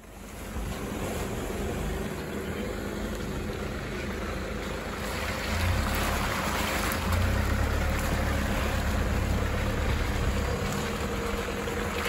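Four-wheel-drive utes driving slowly past on a dirt track, a steady engine rumble with wind noise on the microphone. The rumble grows louder about halfway through as a Toyota Hilux passes close.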